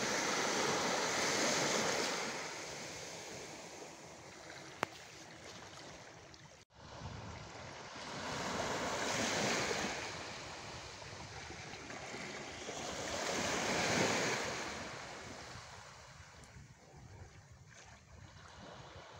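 Small sea waves washing onto a shallow shore, swelling and fading in slow surges every few seconds, with a single faint click about five seconds in.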